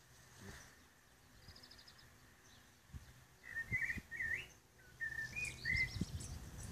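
Songbird singing: a short rapid high trill, then several warbling whistled phrases in the second half. A few low thuds come in near the end.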